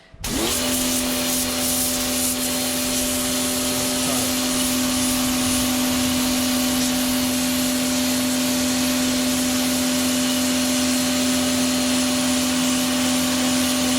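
Parkside PHD 110 D1 electric pressure washer running as its trigger is squeezed, starting abruptly right at the beginning. It holds a steady motor hum under the hiss of the water jet blasting dirt out of paving and grout lines.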